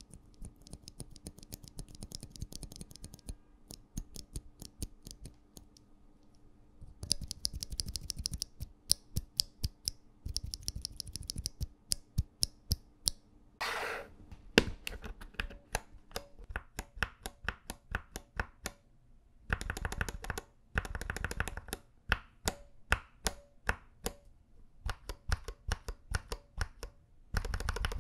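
YUNZII Milk linear mechanical keyboard switches, lubed from the factory, being pressed and released over and over, giving a steady run of short clacks. For the first half a single switch is pressed in the hand. After a brief handling noise about halfway, switches mounted in an acrylic plate are tapped, with a few quick rapid-fire runs of presses.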